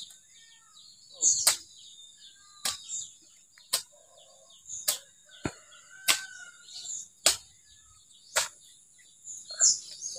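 A cangkul (broad-bladed Javanese hoe) chopping into garden soil, about eight sharp strikes roughly a second apart. Birds chirp and insects drone steadily in the background.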